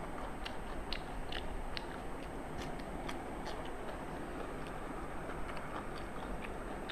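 Chewing and wet mouth sounds of people eating rice and curry by hand, made up of many small irregular clicks and smacks over a steady background hiss.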